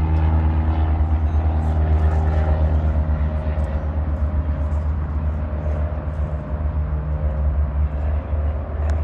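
An engine running with a steady low drone and a faint pitched hum above it, easing slightly in level toward the end.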